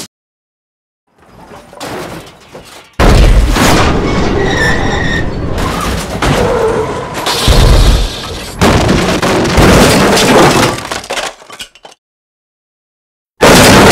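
Car crash sound effect: a sudden loud impact about three seconds in, followed by crashing and breaking debris with two more heavy hits, fading out about two seconds before the end. Another loud crash begins just before the end.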